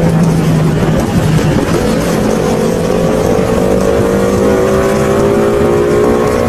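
Motorcycle engine running under way as the bike is ridden, its pitch rising slowly from about two seconds in.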